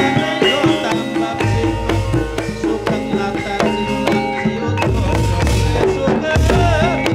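Gamelan music for an ebeg (kuda lumping) trance dance: kendang hand drums over ringing pitched metal percussion, with deep low notes recurring every second or two.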